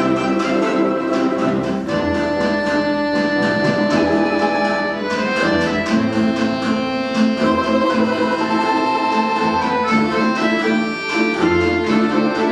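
A Russian folk instrument ensemble playing an instrumental piece: a melody of held notes over a full accompaniment, the notes changing every second or so.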